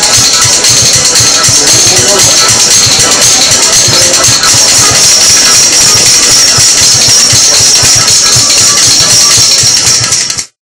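Rhythm bones clattering in a fast, unbroken rhythm, two pairs of clappers struck together in the hands. The sound cuts off suddenly just before the end.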